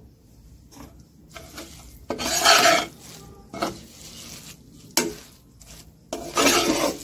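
Spatula scraping and stirring grated coconut and jaggery around a pan on the stove, cooking the filling dry. It goes in separate strokes: two long loud scrapes about two and six seconds in, with shorter scrapes between and a sharp tap about five seconds in.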